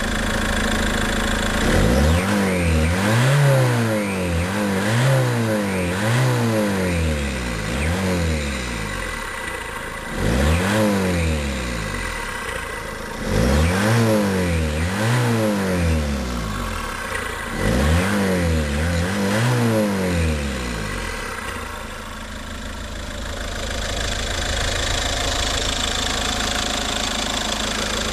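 Ford Focus 2.0 TDCi diesel engine with a K&N air filter element, its intake sucking audibly. It idles, then is blipped repeatedly in quick revs, each rising and falling in pitch, in four bursts over about twenty seconds, and settles back to a steady idle.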